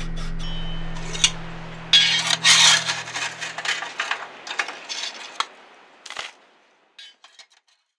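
A brush scraping and sweeping ash in a kamado grill's ceramic firebox, in irregular strokes, with background music fading out under it during the first few seconds. After that come a few sharp clicks and then faint metallic ticks as the steel ash drawer is worked out.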